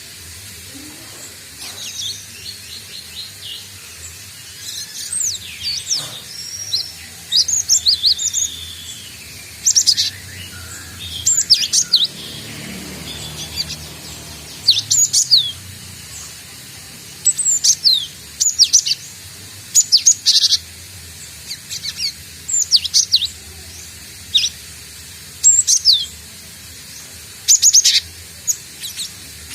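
Cinereous tit (gelatik batu) calling in short bursts of sharp, high chirps every second or two: a newly caught bird still learning its song.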